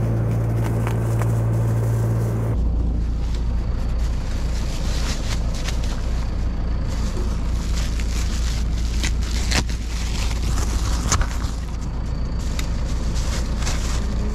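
Cardboard box and packaging being torn open and rustled, with sharp crackles and clicks over a steady low hum of an idling vehicle engine.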